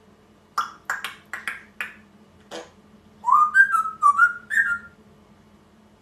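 A pet parrot giving a run of short sharp calls, then whistling a short phrase of several notes that step up and down.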